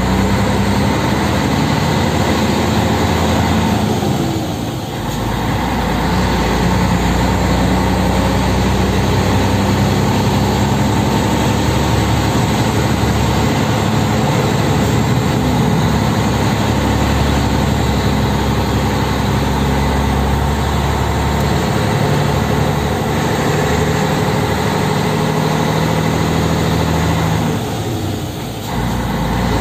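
Scania 113M 320's 11-litre straight-six diesel engine running under a heavy load, heard from inside the cab. The engine sound dips briefly about four seconds in and again near the end.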